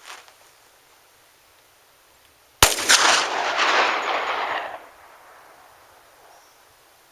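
A single shot from a Glock 20SF 10mm pistol firing a 135 grain Corbon Powerball load, a sharp crack about two and a half seconds in. A second crack follows right after, and the echo trails off over about two seconds.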